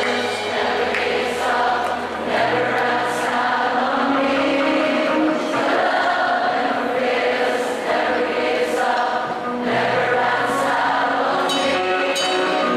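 Live worship band playing a song, with many voices singing together over sustained keyboard chords and bass notes.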